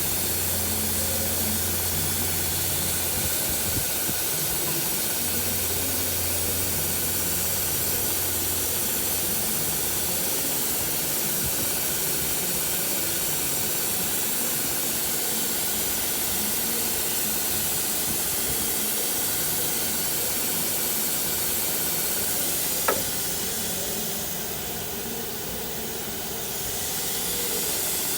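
CNC machining center running with a steady hiss and a low hum that stops after about ten seconds. A single sharp click comes about 23 seconds in, after which the hiss eases for a few seconds and then returns.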